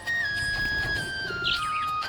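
Background music: a melody of long held notes stepping down in pitch, with a brief budgie chirp about one and a half seconds in.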